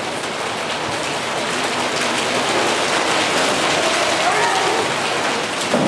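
A large choir making a rain simulation with their hands: a dense, even patter, like rain, that slowly swells.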